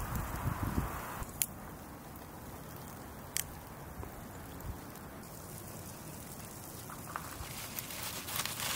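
Fresh chive stems pinched and snapped by hand: a few small, sharp snaps over faint handling rustle. Near the end, leafy rustling as a bunch of spinach is handled.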